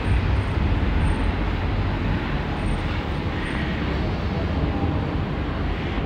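Steady hum of city traffic, an even rushing noise with no distinct events.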